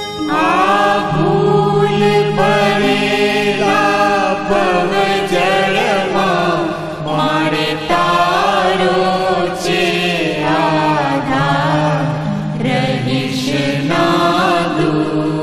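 Aarti chant: voices singing a Hindu devotional hymn in a chanting style over a steady low drone.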